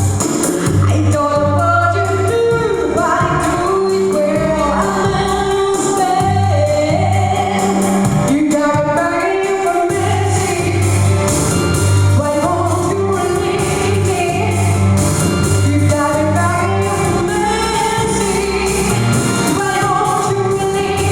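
A woman singing a pop song over a full band backing, with sustained, gliding vocal notes above a steady bass line and an even beat.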